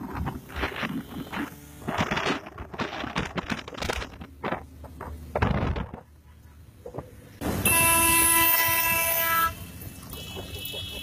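Wind buffeting the microphone over the running of motorcycle engines, then a little past halfway a loud, steady horn blast lasting about two seconds. A fainter, higher horn tone follows near the end.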